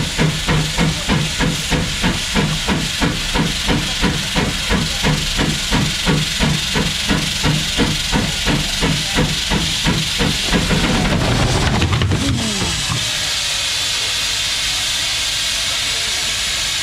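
McLaren steam road locomotive working hard on a dynamometer belt, its exhaust beating regularly about four times a second. About ten seconds in, as the drive belt comes off, the beat breaks up and the engine runs down, leaving a steady loud hiss of escaping steam.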